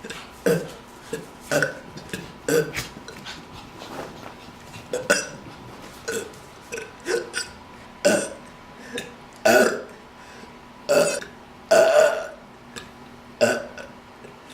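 A person burping over and over: about twenty short burps, one or two a second, with brief gaps. The loudest burps come in the second half.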